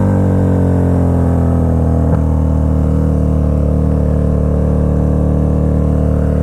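KTM 1290 Super Duke R's V-twin engine, fitted with an Austin Racing exhaust, running steadily while the bike rides along. Its pitch eases slightly at first and then starts to rise again near the end.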